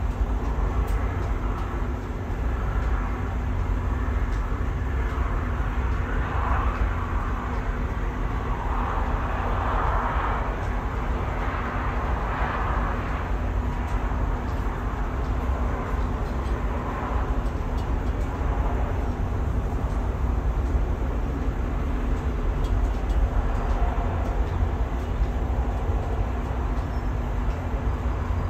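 Steady low rumble of strong wind on the microphone, with distant road traffic swelling and fading, loudest between about six and thirteen seconds in.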